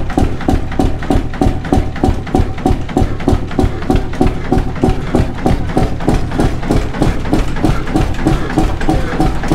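Large antique stationary gas engine running, a steady, even exhaust beat at about five a second over a low hum.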